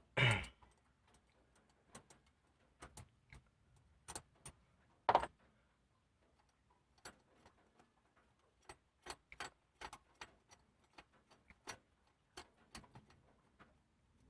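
Hand tools clicking and clinking on metal as a car's throttle body is unbolted from the intake manifold: scattered light ticks, with two louder knocks just after the start and about five seconds in.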